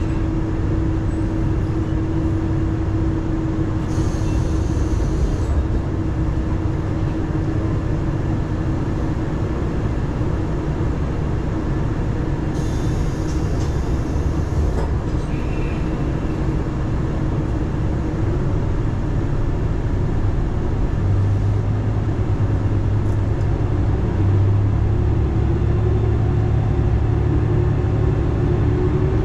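Diesel railcar running with a steady rumble of engine and wheels on rail. Two short hisses come early on and midway. Near the end the engine note rises in pitch and grows louder as the railcar accelerates.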